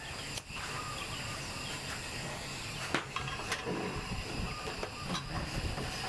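Steady outdoor background hiss, with a few light clicks.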